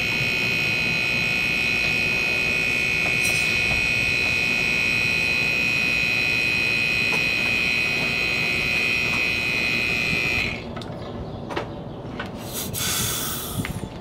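Homemade air compressor built from a Bristol hermetic refrigeration compressor, running with a steady high-pitched whine while pumping air into a car's AC system at about 200 psi. It cuts off suddenly about ten seconds in, and a short hiss follows near the end.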